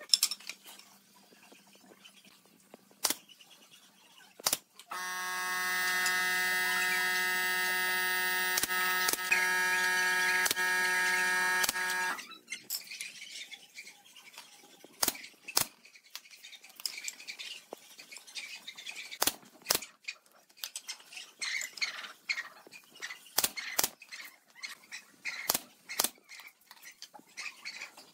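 Pneumatic nail gun firing brads into pine framing strips, with single sharp shots every second or few and wood being shifted and tapped between them. About five seconds in, a loud steady buzzing hum starts, runs for about seven seconds and cuts off suddenly.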